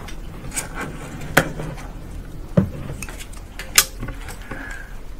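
Glass microscope slides clicking and clattering as one slide is swapped for the next on the microscope stage: three sharp clicks about a second apart, with a few lighter taps, over a low steady hum.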